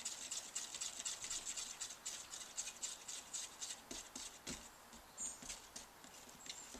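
Old, thick paint being stirred in a tin with a screwdriver, the metal scraping the sides of the can in quick, regular faint strokes that thin out after about four seconds. The paint is being worked to thin it down with thinners.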